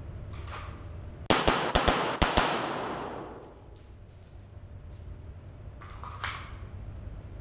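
A rapid string of pistol shots from a SIG Sauer P320, about seven in just over a second, echoing in an indoor range.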